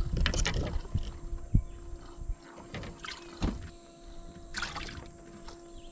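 Scattered knocks and clunks of gear being handled in a plastic fishing kayak, with some rustling; the busiest stretch is in the first second, followed by a few single knocks.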